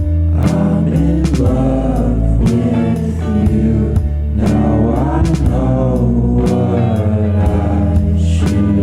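Background music: a song with a sung melody over a steady beat and bass.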